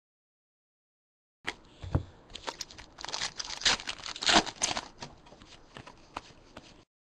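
2011-12 Panini NBA Hoops trading cards being flipped through by hand while a foil card pack is torn open: a run of crisp snaps and crinkling that starts suddenly about a second and a half in, is loudest a little past the middle, and cuts off just before the end.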